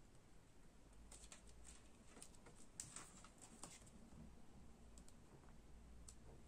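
Near silence with faint, scattered light clicks and taps, mostly in the first half, as fingertips press and handle a small glued paper cut-out on a card.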